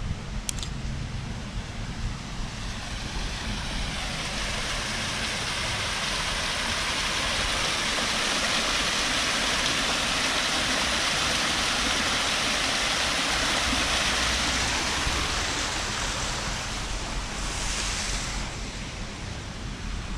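Water from a rock waterfall fountain pouring into a stone basin, a steady rushing splash that swells over the first few seconds and fades near the end. A low wind rumble on the microphone runs underneath.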